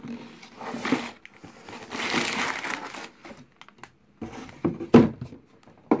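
Plastic bags of Lego Technic pieces crinkling as they are poured out of a cardboard box onto a desk, with a few sharp thumps as they land, the loudest about five seconds in.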